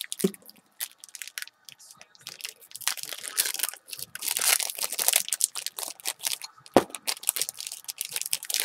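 Metallic foil wrapper of a Topps Chipz pack crinkling and tearing as it is opened by hand, in irregular bursts of crackle. A single sharp click stands out about seven seconds in.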